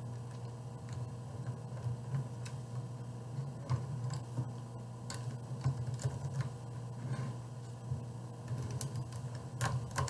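Small plastic cube pieces clicking and rattling as a DIY Rubik's Cube kit is fitted together by hand: irregular light clicks, the sharpest ones near the end.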